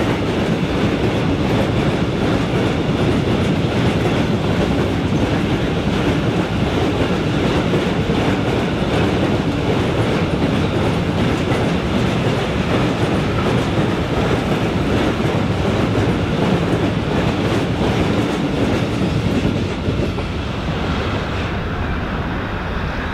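Steel wheels of a passing freight train's hopper wagons rolling over the rails, a steady running noise that eases off about twenty seconds in as the end of the train goes by.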